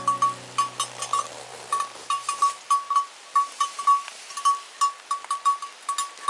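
Bells on grazing sheep clanking right beside a tent: short metallic rings at an irregular pace, several a second. A tail of background music fades out in the first couple of seconds.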